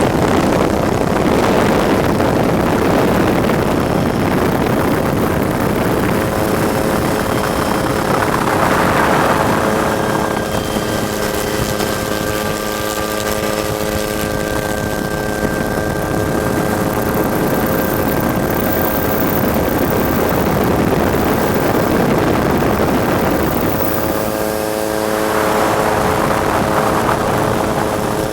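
Helicopter in flight heard from on board: a dense rushing noise of rotor and engine with a steady whine of several tones, swelling twice.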